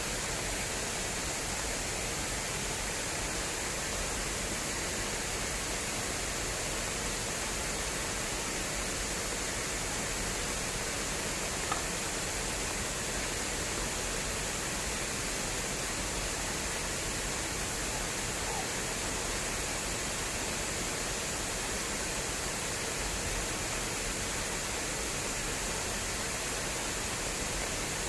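Water rushing fast through an irrigation channel: a steady, unbroken flow noise, with one faint tick about twelve seconds in.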